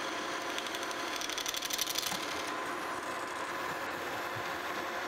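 Metal lathe running through a turning cut on a steel cane mill roller's shaft journal: a steady motor and gear hum with a thin whine, and a rapid ticking for about a second early in the cut.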